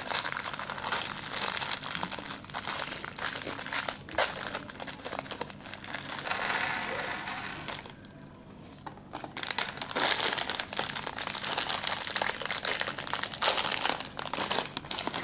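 Thin clear plastic bags of Lego pieces crinkling and crackling as they are handled, with a short lull about eight seconds in.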